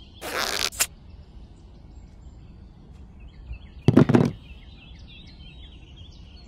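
A toy carrot pulled out of sand: a brief noisy swish ending in a sharp click. About four seconds in there is a louder thud as a carrot is set into a plastic toy trailer. Birds chirp faintly in the background throughout.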